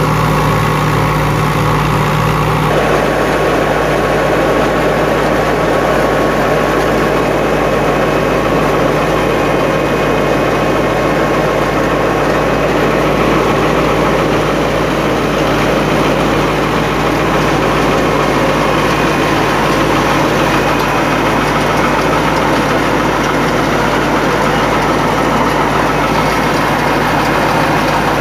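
Fiat 640 diesel tractor engine running steadily under load, driving a belt-driven wheat thresher, with the thresher's drum, belts and pulleys running loudly alongside it.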